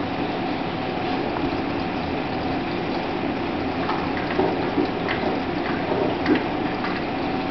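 Reef aquarium's pumps and water circulation: a steady hum over running, trickling water, with a few light clicks in the second half.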